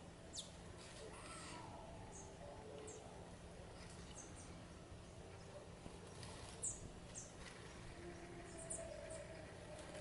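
Small songbirds chirping: scattered short, high calls, a sharper one about half a second in and another about two-thirds of the way through, over a faint steady background hum.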